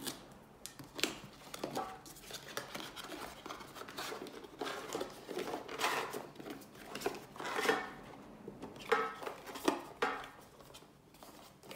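A GoPro Hero 8 retail box being opened by hand: a paper tear strip ripped away, then cardboard and plastic packaging rustling, scraping and clicking irregularly as the camera in its plastic holder is slid out.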